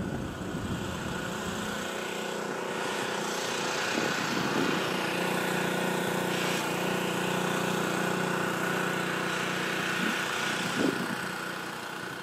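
Steady drone of a running engine, holding one pitch over a wide hiss, with a couple of faint knocks; it fades away near the end.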